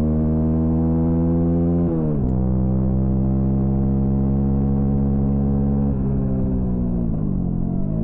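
Honda CB125R's single-cylinder four-stroke engine under way: its pitch climbs, drops sharply about two seconds in, holds steady, then falls off and picks up again near the end.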